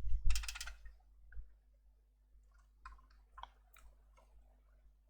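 A short flurry of sharp clicks and rustle in the first second, then a few faint, scattered clicks and taps of a circuit board and tools being handled on a workbench.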